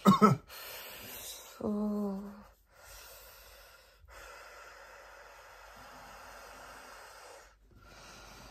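A woman in labour breathing through a contraction: a brief falling moan at the start, a short low hum about two seconds in, then long, slow exhalations.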